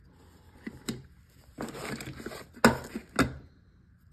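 A nylon stuff sack rustles as a Primus Lite stove pot is pulled out of it. Then come two sharp knocks about half a second apart as the pot is set down on a wooden table.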